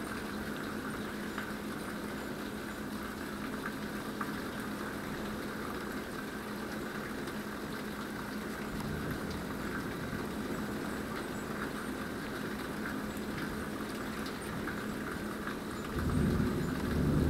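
Steady rain and wind of a heavy thunderstorm, under a faint steady low hum. Near the end a low thunder rumble rolls in and is the loudest sound.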